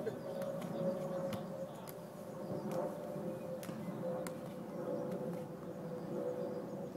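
Football being juggled on the foot: short, light taps of the ball about every half second to a second, over a steady hum.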